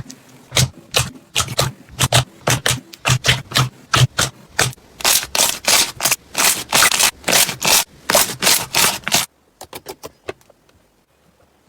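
Slime being squished and pressed by hand: a quick run of sharp clicking pops, about three or four a second, that stops about nine seconds in after a few fainter ones.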